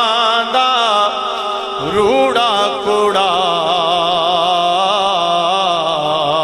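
A man singing Punjabi kalam in a long drawn-out melisma without clear words: held notes with a heavy wavering vibrato, sliding from pitch to pitch, over a steady drone.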